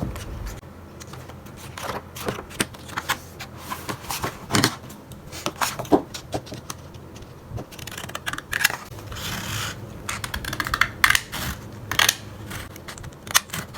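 A manga box set's packaging being handled and opened by hand: irregular clicks, scrapes and rustles, with a longer stretch of rustling about nine seconds in.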